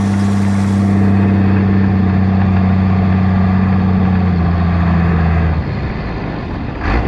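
New Holland 7840 tractor's six-cylinder diesel running through a straight-pipe vertical exhaust, a loud steady drone. About five and a half seconds in the note changes and drops a little in level, and a short sharp sound comes just before it picks up again near the end.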